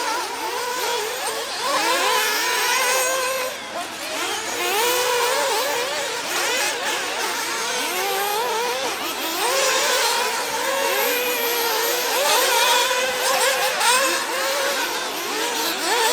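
Several 1/8-scale nitro RC buggies racing, their small two-stroke glow-fuel engines revving up and down over and over, the overlapping pitches climbing and falling as the cars throttle on and off around the track.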